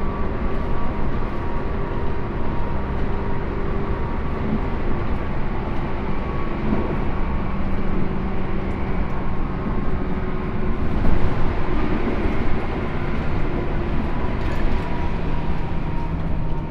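Cabin sound of a Tobu 10000 series field-chopper electric train running between stations: a steady rumble of wheels on the track with a steady whine from the traction motors and gearing.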